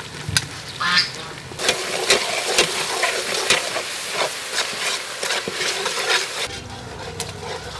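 Red chili paste sizzling and crackling as it fries in oil in a metal pot, stirred with a metal ladle that clicks against the pot. The sizzling grows louder about one and a half seconds in and eases near the end.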